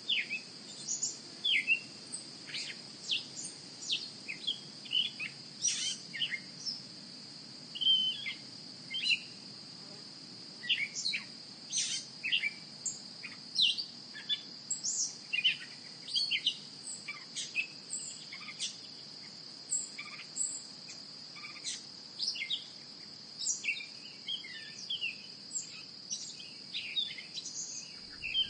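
Birds chirping and calling, many short quick notes, over a steady high-pitched insect drone.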